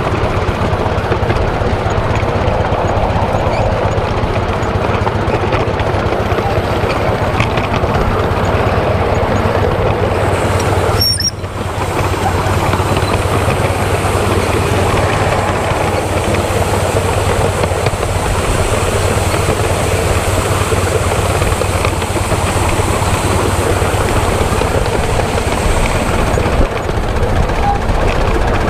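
7¼-inch gauge miniature steam locomotive running along the track, heard as a steady rushing noise of the engine and its wheels on the rails, with a short dip about eleven seconds in.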